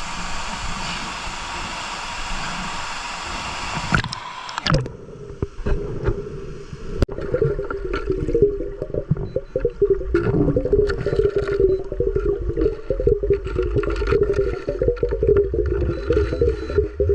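Rushing waterfall water; about five seconds in the sound turns suddenly muffled as the microphone goes under water, giving way to low underwater rumble, bubbling and many small crackling clicks.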